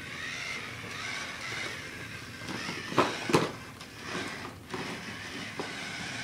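Spy Gear remote-control toy tank's small electric motors and gearboxes whining steadily as it crawls over stacked cardboard board-game boxes, with two sharp knocks about three seconds in and a few lighter clicks.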